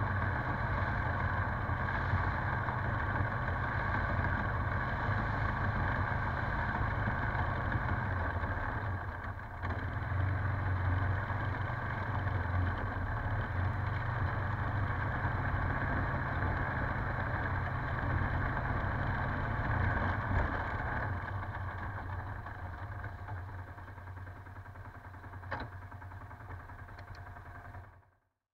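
Polaris Sportsman 570 ATV's single-cylinder engine running steadily while riding, dipping briefly about a third of the way through. It then gets gradually quieter over the last several seconds before cutting off.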